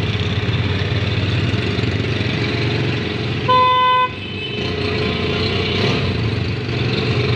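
Street traffic with a vehicle engine running steadily, and a single car horn honk of about half a second midway.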